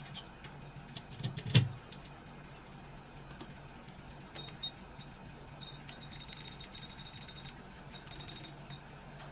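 Small metallic clicks and taps of repair tools on a workbench, with one louder knock about a second and a half in, over a steady low electrical hum; a faint high whine comes in about halfway through.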